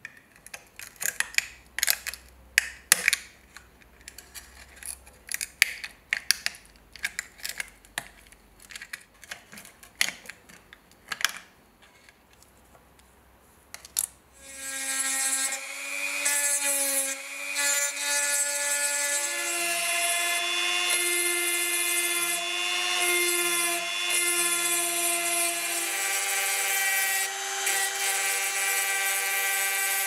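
Sharp, irregular clicks and knocks for about the first half, then a small electric rotary tool or drill starts and runs steadily with a whine whose pitch steps up and down several times, worked on the rivet pins of a clamped pocket-knife handle.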